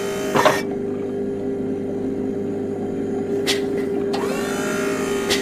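Designed sound effect of a Star Wars GNK 'gonk' power droid: a steady mechanical hum, with short hissing bursts about half a second in and again around three and a half seconds, and a cluster of falling electronic tones near four seconds.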